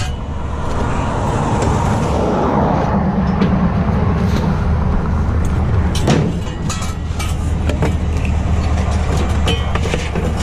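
A vehicle engine running steadily with a low rumble. From about six seconds in come a series of sharp knocks and clanks.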